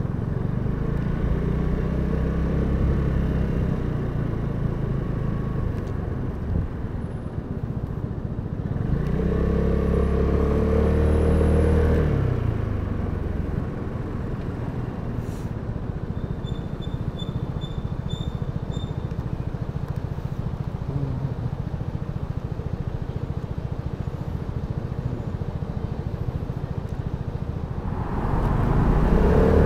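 Vespa GTS 300 scooter's single-cylinder four-stroke engine running while riding in city traffic, with road and wind noise. The engine picks up around ten seconds in and eases off with falling pitch about twelve seconds in, leaving a lower steady rumble. It grows louder again near the end.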